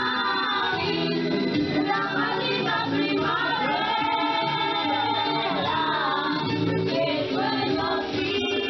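Background music: a song with a lead singer over sustained accompaniment.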